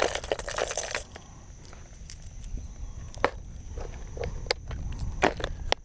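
Fishing tackle being handled while a lure is tied on: a dense run of plastic clicks and crinkles in the first second, then scattered sharp clicks and taps over a low rumble.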